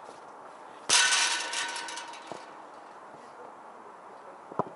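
A kicked football strikes metal, the fence or goal frame, which clangs and rattles with a ringing tone, dying away over about a second. A sharp knock of a ball being kicked comes near the end.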